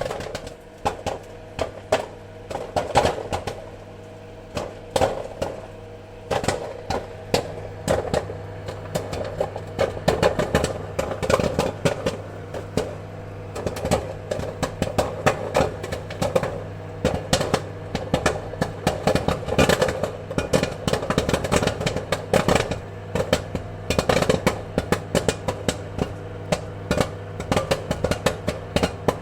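Popcorn kernels popping in quick, irregular pops, some in clusters, over a steady low hum.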